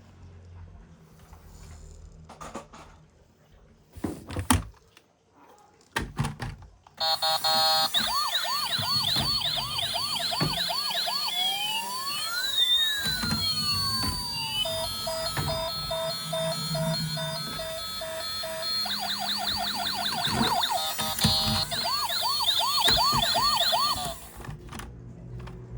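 A toy emergency vehicle's electronic siren, cycling through quick repeated up-and-down yelps, long slow wails and steady beeping tones before cutting off suddenly near the end. It is preceded by a few light plastic clicks and knocks of the toy being handled.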